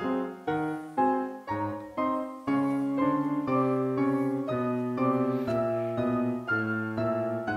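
Background piano music: notes and chords struck about twice a second, each fading away before the next.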